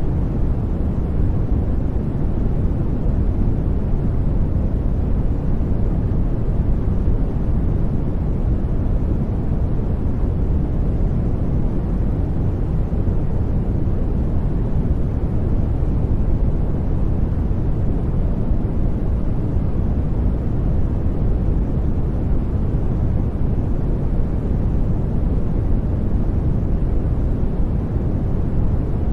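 Steady masking noise track (billed as white noise) with no events, a deep, even rumble-like hiss that is strongest in the low end and thins out toward the highs.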